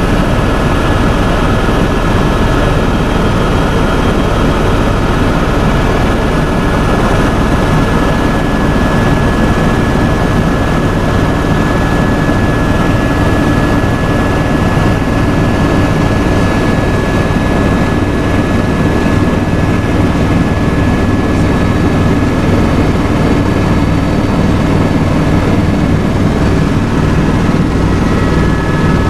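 Helicopter in steady flight: loud, unbroken engine and rotor noise with a constant high whine over it.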